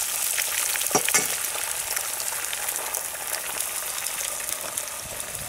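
Bacon and eggs frying in a pan: a steady, crackling sizzle of hot fat, with two short knocks about a second in.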